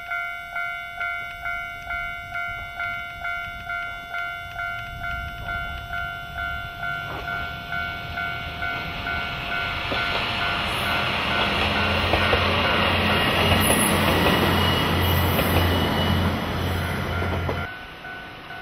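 AN-8900 diesel railcar approaching and passing: the engine drones low and steady under wheel and rail noise, growing louder through the middle and cutting off abruptly near the end. At the start a bell-like ding repeats evenly, about two and a half times a second, then fades under the train.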